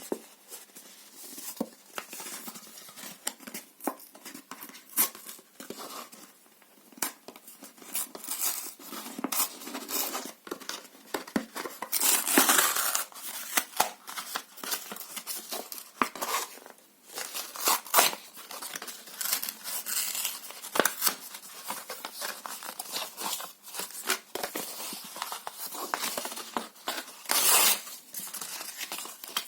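Paper and cardboard being torn by hand in many short crackling rips, with longer, louder tears about twelve seconds in and again near the end.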